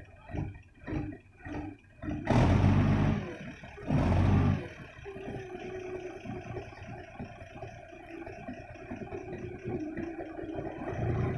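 Heavy forklift engine: a rhythmic pulsing about twice a second at first, then two loud revs a couple of seconds in, after which it runs steadily.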